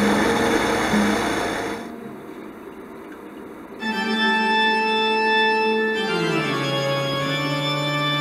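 The carbureted engine of a 1969 Ford Econoline 200 van runs for about two seconds and is then shut off. After a short lull, background organ music with long held notes begins about four seconds in and shifts down once.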